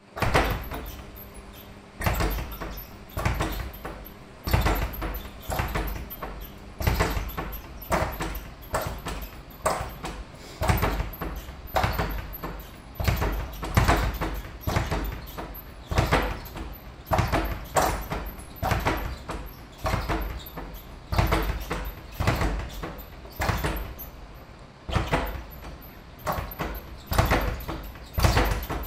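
Speed bag struck with single punches about once a second, each hit followed by a short rattle of rebounds off the wooden rebound board that dies away before the next punch. The spacing is a little uneven, with a longer gap now and then.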